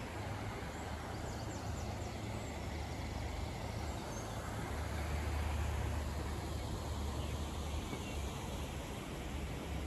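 Steady outdoor urban background noise with a low rumble that swells about halfway through.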